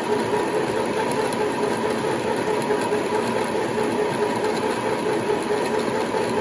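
Aldi Midi sewing machine's motor running steadily at full speed with the foot pedal pressed flat, spinning the bobbin winder to fill a bobbin with thread. A steady, a little noisy hum that does not change.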